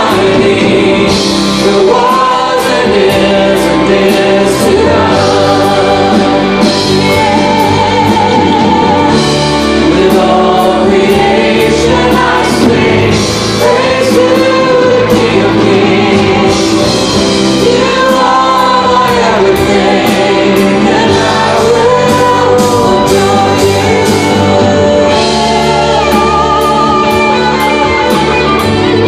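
Live worship band playing and singing: several voices over electric guitars, bass, drums and keyboard, amplified through the PA and heard from the pews of a large church hall.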